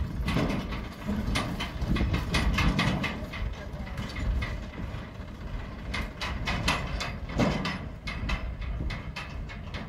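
Tractor diesel engine running as it tows a steel trolley across a rough field, with the trolley body and hitch rattling and clanking irregularly over a low rumble.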